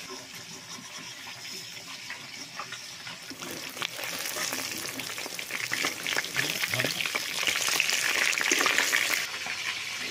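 Rohu fish pieces sizzling and crackling as they fry in hot oil in a wok while being stirred with a metal spatula. The sizzling grows louder about four seconds in and eases off near the end.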